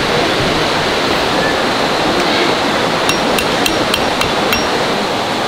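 Hammer driving tent stakes: a run of sharp, ringing metallic blows that starts a little past halfway, about three a second, over a steady rushing noise.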